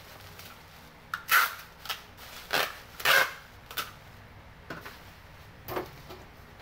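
Plastic bubble wrap and packaging being handled and pressed down into a cardboard box: a string of short, sharp crackles and rustles, the loudest near the middle.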